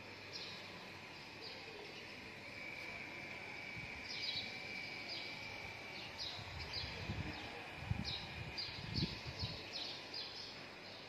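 Small birds chirping outside, a string of short high chirps that slide downward, coming irregularly over a faint background hum. A few low thumps in the second half.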